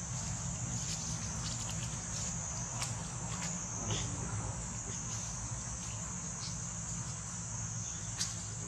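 Steady high-pitched drone of an insect chorus, with a few faint short clicks scattered through.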